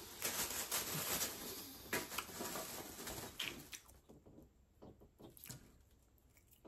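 Soft rustling and handling noises with a few light taps, fading to almost nothing about halfway through.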